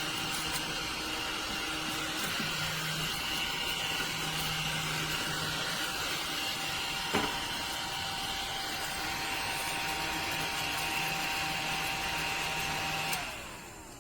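Mini cordless desktop vacuum cleaner running with a steady motor whir, with a single sharp click about halfway through. Just before the end it is switched off and the motor winds down.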